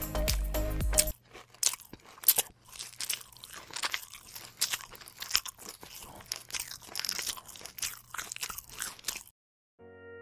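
Background music for about the first second, then close-up crunching and chewing of crispy fried crab, irregular crackles for about eight seconds. It stops near the end, and electronic music with wavering tones starts.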